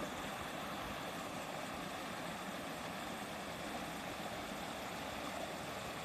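Shallow stream babbling steadily over rocks and small rapids.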